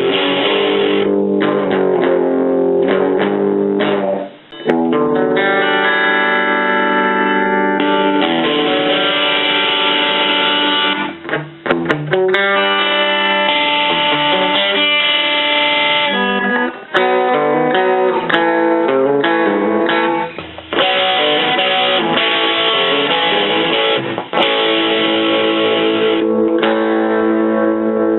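Electric guitar played through a Roland Jazz Chorus combo amplifier: ringing chords and picked single-note passages, with a few short breaks between phrases.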